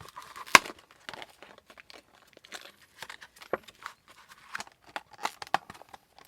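Plastic packaging crinkling and tearing as it is opened by hand to get a grip screw out, in irregular sharp crackles, the loudest about half a second in.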